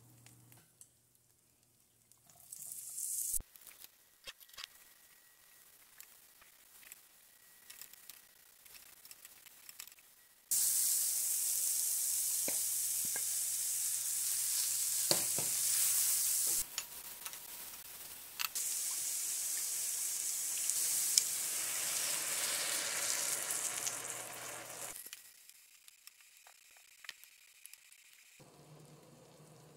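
Sliced onions and thin beef sizzling in a hot cast-iron skillet as they are stirred with a wooden spatula. The sizzle starts suddenly about a third of the way in, breaks off briefly, then fades out a few seconds before the end; before it there are only a few light clicks and scrapes.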